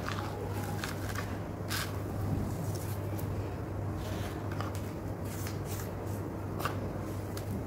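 Hands squeezing, stirring and sifting dry, dusty sand-cement mix (sandmet) in a bucket: irregular short crunches and gritty rustles about once a second, over a steady low hum.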